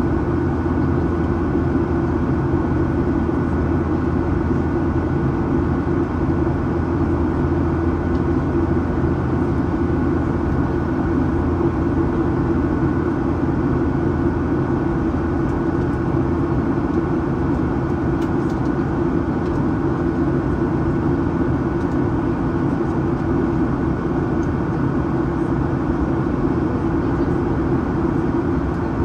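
Cabin noise aboard a Boeing 737-800 in flight: the steady drone of its CFM56-7B turbofan engines and rushing air, with a faint constant whine above it.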